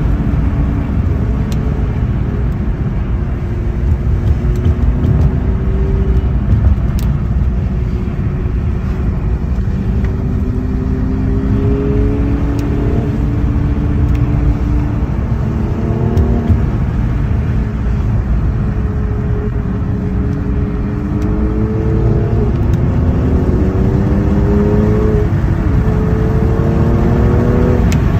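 Car engine heard from inside the cabin, climbing in pitch under acceleration and dropping back at each gear change, over a steady rumble of tyres on wet pavement.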